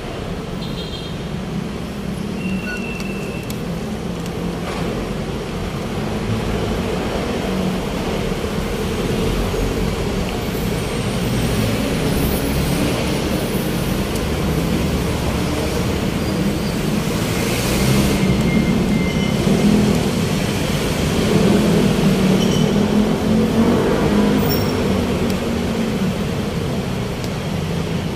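Busy city street traffic: a steady rumble of passing vehicle engines and tyre noise, with a brief high squeal and a louder passing swell about two-thirds of the way through.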